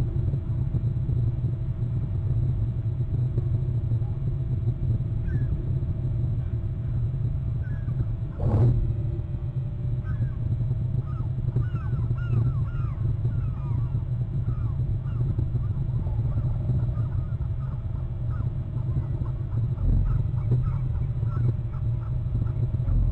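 A steady low rumble of wind on an outdoor microphone, with many short chirping bird calls scattered through it and a single sharp knock about eight and a half seconds in.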